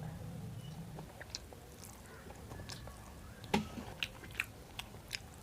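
Close-up chewing and biting of soft egg keema and rice. Wet mouth clicks and smacks come as a run of sharp clicks in the second half, the loudest about three and a half seconds in.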